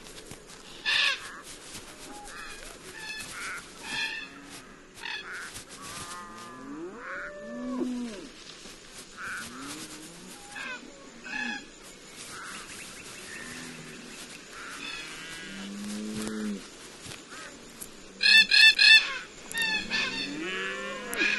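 Red-tailed black cockatoos calling on and off with short, harsh, grating calls, with a loud run of several calls near the end. Underneath, cattle low now and then in drawn-out calls that rise and fall in pitch.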